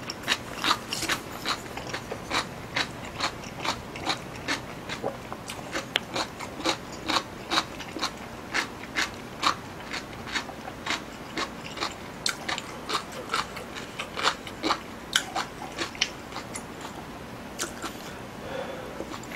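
Close-miked chewing of a mouthful of food, a sharp click with each chew at about two to three chews a second, stopping near the end.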